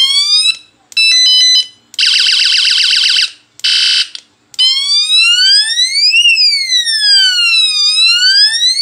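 Electronic horn of a battery-powered bicycle light-and-horn unit, sounding a series of its different horn modes: a short rising whoop, a run of stepped beeps, a fast warble, a short buzz, then a long siren that slides up and back down.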